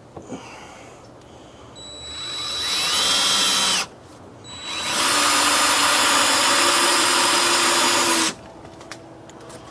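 Power drill driving screws into a deck board: a first run that winds up with a rising whine and stops, then after a short pause a longer steady run that cuts off near the end.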